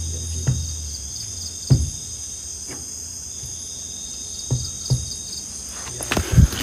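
Steady high-pitched chirring of crickets and other night insects, with several scattered dull thuds, the loudest about two seconds in and a cluster near the end.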